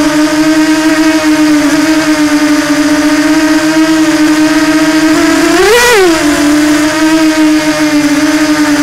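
Brushless electric motor whine of an FPV model aircraft in flight, holding a steady pitch, then rising sharply a little before six seconds in and dropping back as the throttle is briefly punched.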